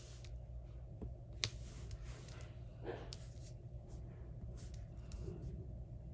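Hands pressing and sliding strips of patterned cardstock paper into place on a glued panel: soft paper rustling and scraping with a few light clicks, one sharper click about a second and a half in, over a steady low hum.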